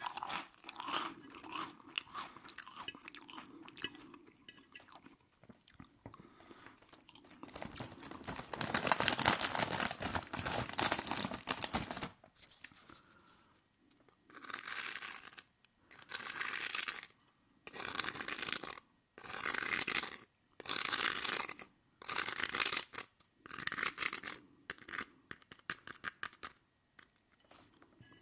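Close-miked chewing of oil-soaked aubergine, with wet mouth sounds. Soft irregular smacks at first, then a loud, dense stretch of noise, then loud chews coming about once a second.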